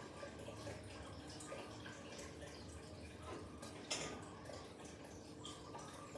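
Water dripping and splashing in small irregular drops, with light ticks and one sharper click about four seconds in.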